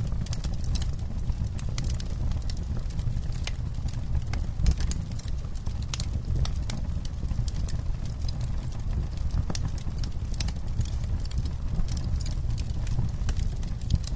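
Campfire crackling: burning wood giving off frequent irregular sharp pops and snaps over a steady low rumble, with one louder pop about a third of the way in.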